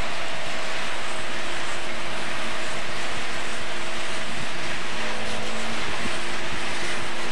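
Steady engine drone with a few constant tones, under a loud continuous rushing noise; a new tone joins about a second in and another about five seconds in.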